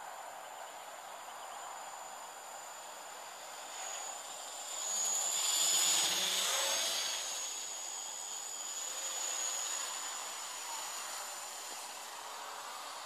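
Gaui 330X-S quadcopter's electric motors and propellers buzzing as it flies close past. The buzz grows louder to a peak about six seconds in, its pitch falling as it goes by, then fades as it climbs away.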